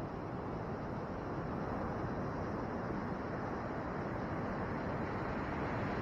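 Steady rush of ocean surf breaking on a sandy beach, growing slightly louder about a second and a half in.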